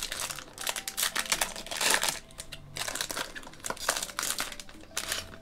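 Foil wrapper of a Pokémon booster pack crinkling and tearing as it is ripped open by hand, in a run of crackly bursts.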